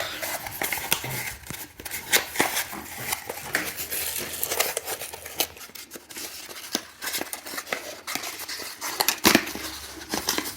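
Packaging being handled and opened by hand: irregular clicks, rustles and crinkles of cardboard and plastic wrapping as a vacuum cleaner attachment is unpacked.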